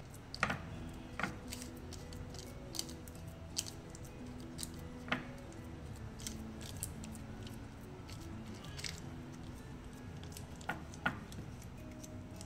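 Silicone spatula pressing and spreading a thick barfi mixture in a paper-lined glass dish: soft squishes and scattered light taps and clicks, over faint background music.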